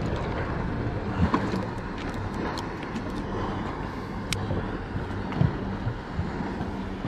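Steady low hum of a boat's Suzuki 175 outboard engines idling, under wind and water noise, with a few light clicks and knocks from the fishing gear being handled.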